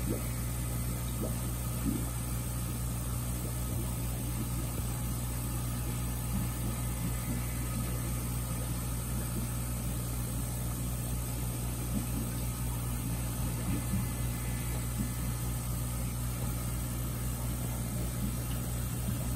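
A steady low mechanical hum, like a motor running.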